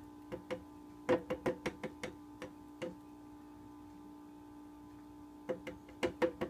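Plastic measuring cup knocked again and again against the rim of a plastic shaker bottle to get the last maple syrup out: a quick run of about a dozen light knocks, a pause of a couple of seconds, then another run near the end.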